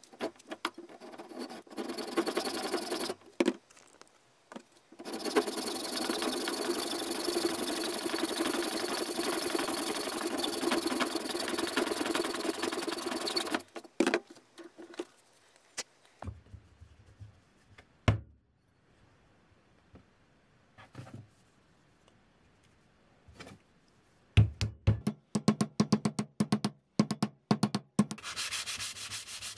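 Hacksaw cutting through a wooden axe handle clamped in a bench vise: a short burst of sawing, then a long steady run of strokes lasting about eight seconds. Later comes a quick series of sharp knocks, and near the end a steady rubbing of sandpaper on steel.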